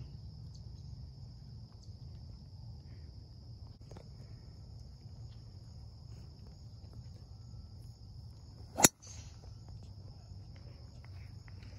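A golf tee shot: one sharp crack of the club head striking the ball about nine seconds in. Steady high-pitched insect drone underneath.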